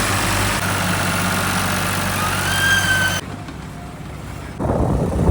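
Heavy diesel machinery running, with a brief rising whine a little over two seconds in. The sound cuts off abruptly about three seconds in, and a louder, rougher engine rumble starts near the end.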